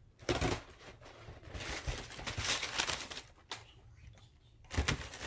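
Cardboard Priority Mail shipping box being pulled open by hand: tape tearing, cardboard flaps scraping and packing material rustling in several bursts, loudest just before the end.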